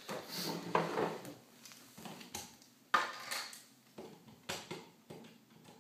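Handling noise of a vacuum cleaner's power cord being pulled out and plugged into a socket: scattered rustles, clicks and clatter, with a sharper knock about three seconds in.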